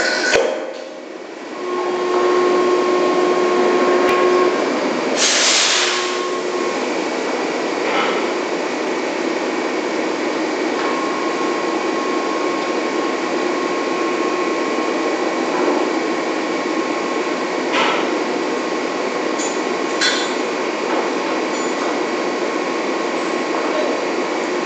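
Steady machinery din of an offshore drilling rig's drill floor during slow drilling, with a steady whine that comes and goes. There is a short burst of hiss about five seconds in, and a few metal clinks later on.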